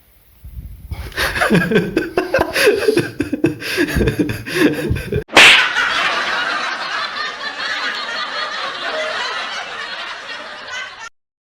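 People laughing in irregular bursts for about five seconds. Then, after a sudden break, comes a loud burst followed by a steady noisy sound that stops abruptly near the end.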